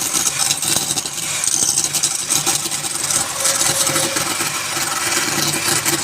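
Wood lathe running: a steady motor hum under a continuous hiss.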